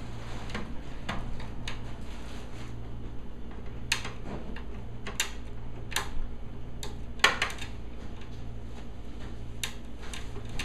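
Phillips screwdriver and screws clicking against the metal chassis as a TV power supply board is screwed back down: about ten sharp, irregularly spaced clicks, the loudest a little past the middle. A steady low hum runs underneath.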